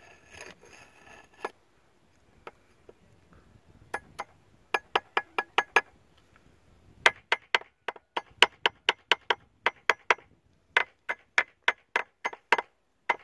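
A rusty metal bar tapping again and again on the corroded starter motor of a Johnson V4 outboard: sharp metallic knocks in quick runs of about four or five a second, beginning about four seconds in. The owner takes the starter to be failing and in need of replacement.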